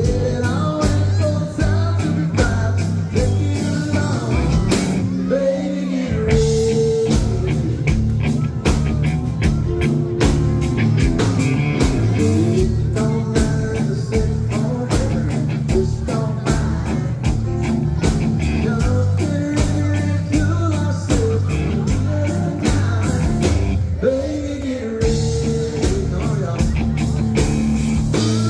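Live band performing a country song: a man singing lead into a microphone over a drum kit keeping a steady beat and a sustained bass line.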